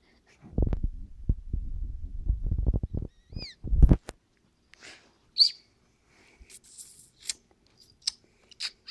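A person making silly mouth noises: a low sputtering buzz for about two and a half seconds, a short rising squeak, a brief loud blow, then a scatter of sharp mouth clicks.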